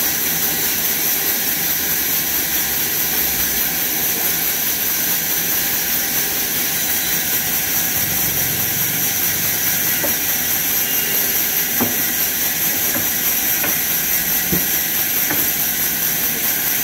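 Horizontal band sawmill cutting lengthwise through a log: a steady high hiss with a thin, even whine, and a few faint ticks in the second half.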